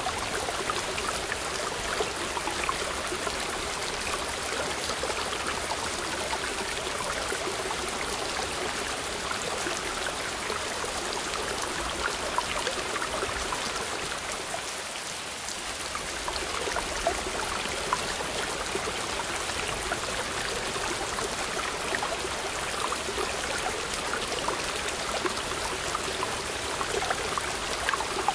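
Small waterfall splashing down between boulders into a rock pool: a steady rush of falling water.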